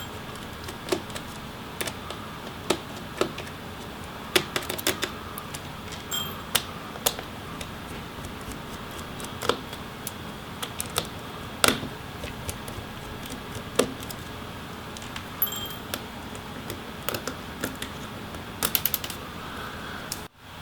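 Irregular small clicks and taps of a precision screwdriver working the screws out of a laptop's bottom cover, with a quick run of clicks near the end.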